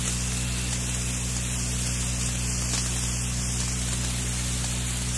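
Steady hiss with a low, even mains hum: the background noise of an old lecture recording.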